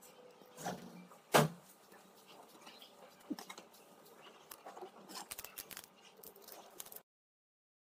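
A foil-printed sticker and its backing paper handled by hand: light crinkling and rustling with scattered small clicks, and one sharp knock about a second and a half in. The sound cuts off to dead silence near the end.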